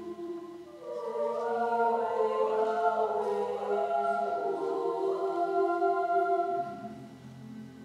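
Mixed chamber choir singing held chords in close harmony, swelling about a second in and fading near the end to softer low sustained notes.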